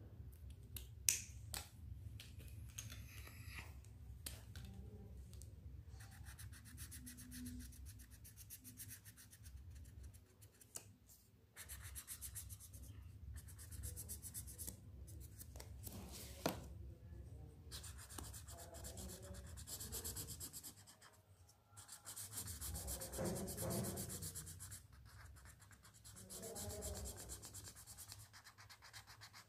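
Felt-tip sketch pens rubbing and scratching on paper as areas are coloured in, faint and in short stretches, over a steady low hum, with a couple of sharp clicks.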